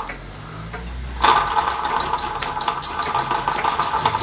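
Steam hissing from a Castle Products Model B toy steam engine, starting abruptly about a second in and running steadily with a fast, irregular crackle of ticks.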